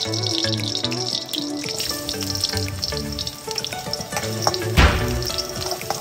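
Background music with a repeating bass line over hot oil frying in a wok. About five seconds in there is a loud burst of sizzling as ginger slices go into the oil and are stirred.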